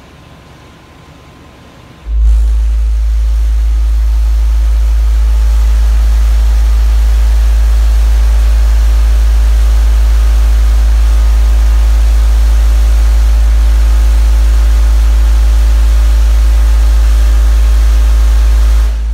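A car-audio subwoofer system in a pickup truck plays one steady, very loud low bass tone for an SPL meter run at about 155 dB, driven by roughly 2,100 watts. The tone starts abruptly about two seconds in and cuts off just before the end.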